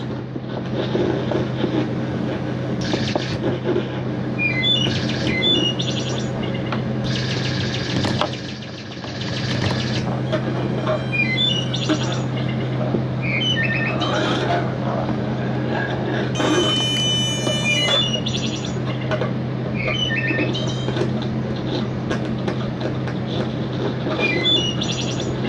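Improvised electronic noise from homemade circuits: a steady low drone under short, repeated chirping glides, with a buzzy, stuttering high passage about two-thirds of the way through.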